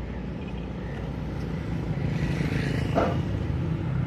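Steady low rumble of motor-vehicle engines, with a brief sound about three seconds in.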